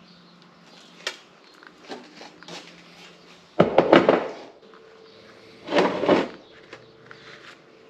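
Clanking and knocking of hand tools and metal engine parts being handled, with two loud bursts of clattering about halfway and three quarters of the way in.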